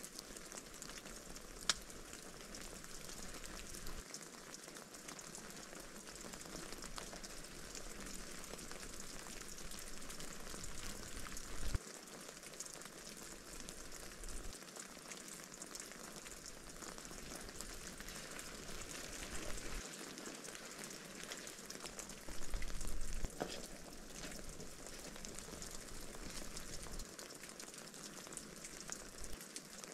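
Rain mixed with wet snow falling on a tarp and the forest floor: a fine, even patter with scattered sharper drop ticks. A few louder low bumps come through, about twelve seconds in and again roughly ten seconds later.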